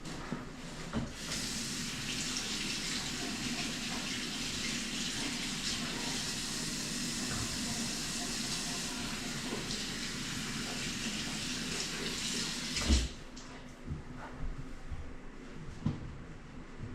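Water running from a faucet into a sink as a steady hiss for about twelve seconds, then shut off abruptly with a thump, followed by a few light knocks.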